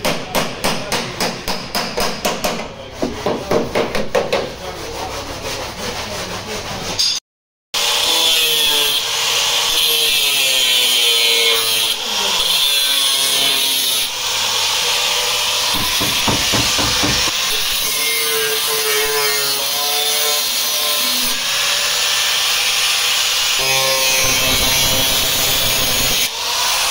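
Rapid scraping strokes, about four or five a second, of a hand tool worked along the metal edge of the car's rear hatch opening. Then an angle grinder's cutting disc cutting through the sheet-metal body panel at the rear wheel arch, a steady loud grind whose pitch wavers under load.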